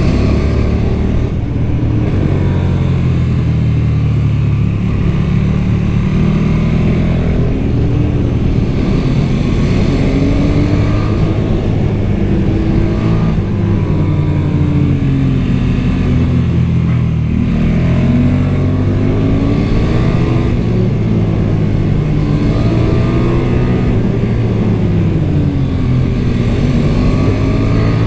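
KTM 1290 Super Duke R's V-twin engine, through its stock exhaust, under way on the road: the engine note rises and falls again and again as the bike accelerates and backs off.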